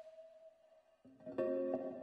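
Real-time electronic sound from a Geecos wooden gesture-control surface played by hand. A held tone fades away to near silence. About a second in, new pitched notes enter with a few sharp attacks.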